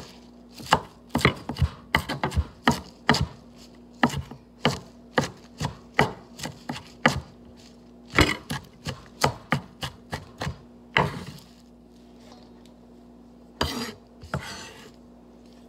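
Knife chopping on a cutting board, quick irregular strokes about two to three a second. The chopping stops about eleven seconds in, then two more strokes come near the end.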